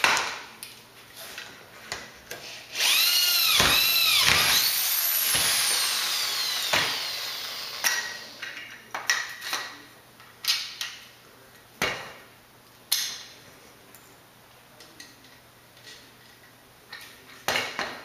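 Electric hand drill boring through a square aluminium tube and its connector. It runs up in a few quick pulses, its whine rising and dipping, then runs steadily and winds down over a few seconds. Sharp clicks and knocks of parts being handled follow.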